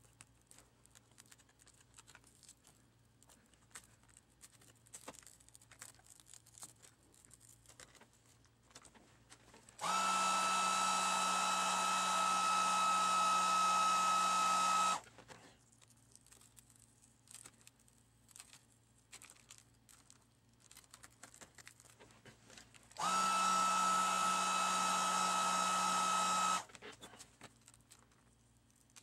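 Handheld hot-air blower run twice, a steady whining rush for about five seconds from about ten seconds in and again for about three seconds later, heating the adhesive that holds the touchscreen glass to its bezel. Between the blasts come faint quick clicks and scrapes of a hobby knife prying the glass from the plastic frame, sped up.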